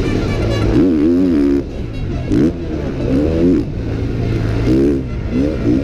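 KTM 450 SX-F motocross bike's single-cylinder four-stroke engine revving up and down over and over as the throttle is opened and shut, the pitch climbing and dropping every second or so.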